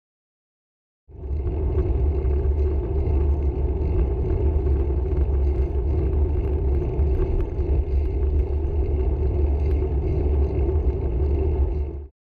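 Steady, deep road and wind noise from a camera riding along a street, with light rattling clicks. It starts suddenly about a second in and cuts off abruptly near the end.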